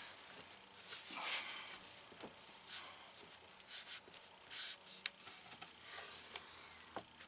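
Faint rubbing and rustling of hands pressing hard against a closed cabinet door, with a sharp click near the end as the door comes open.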